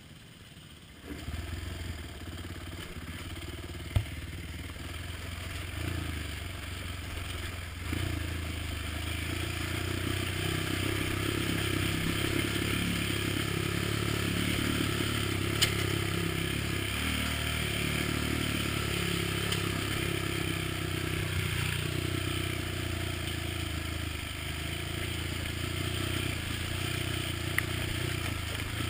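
ATV engine running under throttle along a dirt trail, getting louder about a second in and then holding a steady pitch. A few sharp knocks stand out above it.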